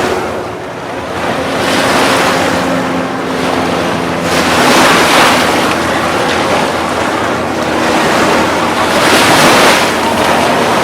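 Ocean surf washing up on the beach, the noise swelling and easing every few seconds, with wind buffeting the microphone.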